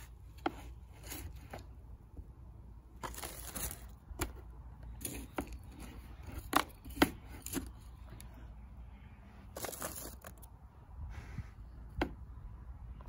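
Plastic liner of a wicker hanging-basket planter crinkling as soil is put into it, with scattered sharp clicks and knocks and two longer rustles, about three and ten seconds in.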